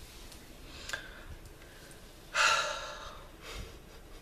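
A woman's loud, breathy sigh about two seconds in, starting suddenly and trailing off, followed by a softer breath.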